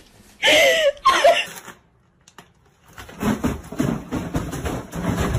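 A loud cry at the start, then after a short pause a run of irregular thuds and scraping as a box slides and bumps down carpeted stairs.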